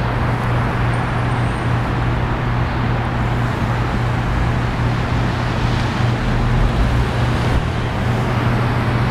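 Steady city street traffic noise with a constant low hum under it.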